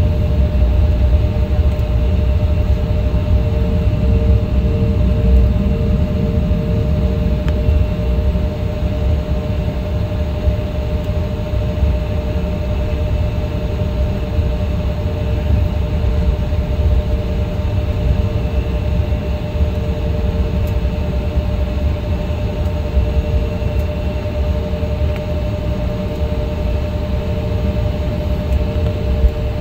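Steady cabin noise inside an Embraer E175 regional jet with its two GE CF34-8E turbofans running: a loud, even low rumble with a steady hum over it.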